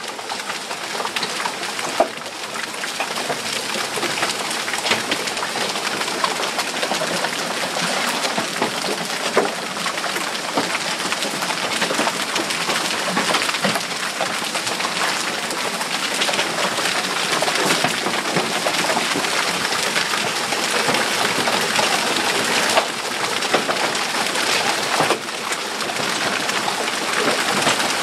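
Heavy rain mixed with hail pelting down: a dense, steady hiss full of small ticks of stones striking, with a few louder sharp knocks.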